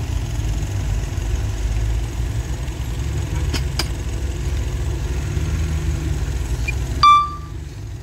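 Diesel dump truck engines running in a steady low rumble. A short, high beep sounds about seven seconds in, the loudest moment.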